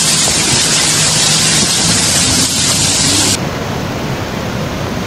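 Fast-flowing floodwater rushing, a loud steady noise. About two-thirds of the way through it cuts to another stretch of torrent that is a little quieter and duller.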